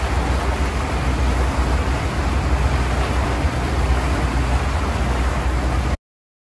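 Steady low rumble and rushing water heard aboard a moving harbour water bus: its engine and the churning wake behind the stern. It cuts off suddenly about six seconds in.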